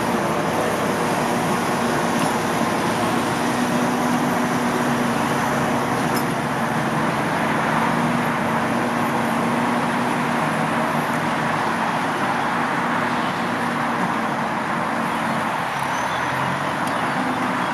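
Massey Ferguson 445 tractor's diesel engine running steadily, with an even low hum in its note throughout.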